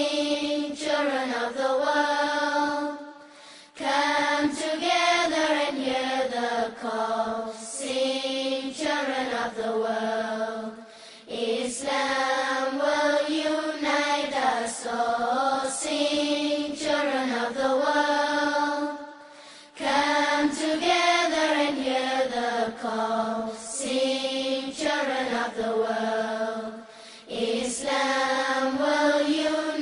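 A solo voice chanting an Islamic religious recitation in long, bending melodic phrases, pausing briefly every few seconds.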